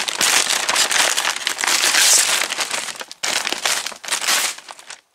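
Plastic masking sheeting and masking paper being peeled and crumpled off a car body by hand: loud crinkling and crackling, with a short break about three seconds in, dying away near the end.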